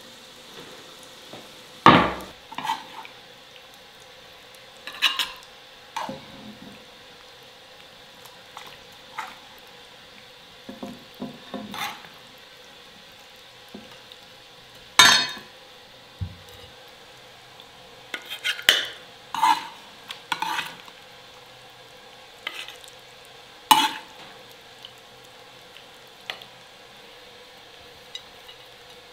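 Metal utensils clinking and scraping against dishes in scattered separate strokes with pauses between them. The sharpest clinks come about 2, 15 and 24 seconds in.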